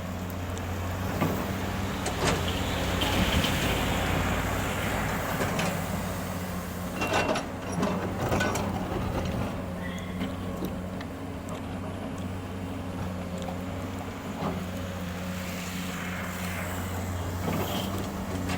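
Diesel excavator engine running steadily under load, with a few short clanks of the bucket and loading as it works.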